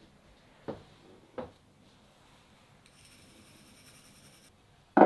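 Knocks from something being handled: two soft knocks about a second in, a faint high hiss in the middle, then two sharp, louder knocks at the end.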